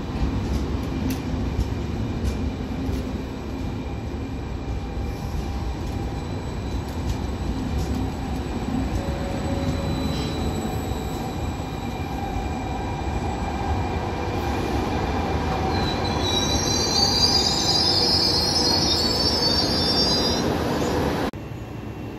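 Trenord double-deck passenger train rolling along the platform: a steady rumble of wheels and running gear with thin whining tones. About two-thirds of the way in, a high-pitched squeal from the wheels rises over it, then the sound cuts off abruptly near the end.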